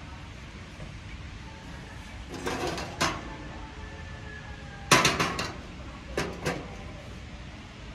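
Sheet-metal charcoal chimney starter clattering against the metal grate of a barbecue's side burner as it is lifted out and set back down. A scraping rattle comes about two and a half seconds in. The loudest clank comes about five seconds in, then two lighter knocks a little after six seconds.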